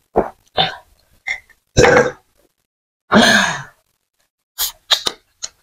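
A person gulping water from a glass close to the microphone in short swallows. About three seconds in comes a loud, long voiced exhale falling in pitch, and near the end a few short, sharp mouth clicks.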